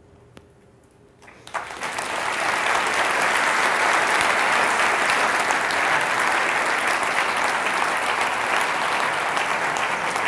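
Audience applauding, starting about a second and a half in and quickly swelling to a steady level.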